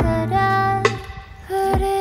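Background music: a sung or melodic line of held, gliding notes over a steady low bass note, with a sharp percussive hit a little before the middle and a low falling drum thump near the end.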